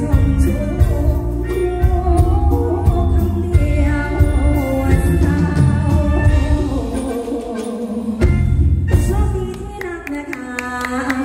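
A live Thai band playing a song while a woman sings over it through a microphone and PA speakers, with drums, bass and keyboard. The bass and drums drop out about a second before the end.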